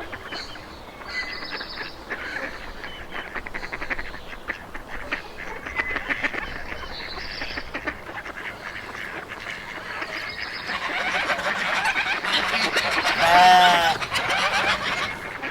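A flock of domestic geese calling: continuous gabbling chatter that grows louder toward the end, with one loud honk near the end.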